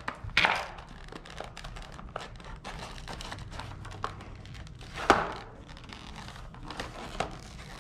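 Paper and plastic blister packaging of a toy crinkling and rustling as it is torn open and handled, with a louder crackle about five seconds in.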